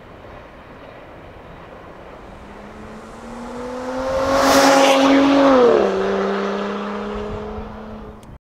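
A road vehicle passes close by: its hum swells over a few seconds and drops sharply in pitch as it goes past, then fades over a faint background rumble. The sound cuts off abruptly near the end.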